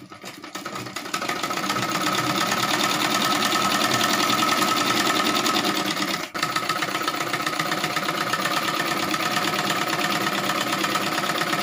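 Domestic sewing machine stitching a folded hem on thin fabric, running at a rapid, steady stitch rate. It speeds up over the first second, stops for an instant about six seconds in, then runs on.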